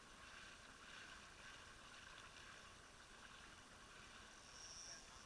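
Near silence: a faint, steady hiss, with a brief higher hiss shortly before the end.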